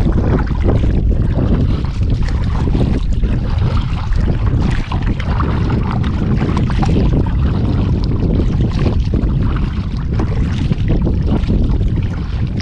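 Strong wind buffeting the action-camera microphone, a steady low rumble, with water splashing and lapping against a plastic sit-on-top kayak as it is paddled over choppy water.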